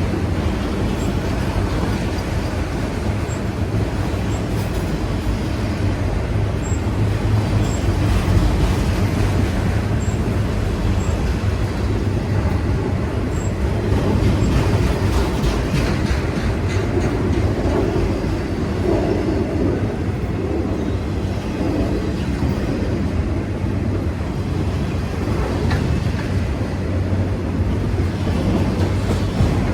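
Empty autorack freight cars rolling past, a steady rumble of steel wheels on the rails with faint clicking from the wheels and joints.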